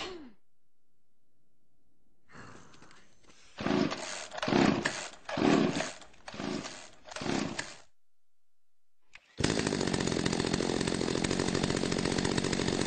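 Chainsaw revving in five short surges a little under a second apart. After a brief pause it runs loud and steady from about nine and a half seconds in.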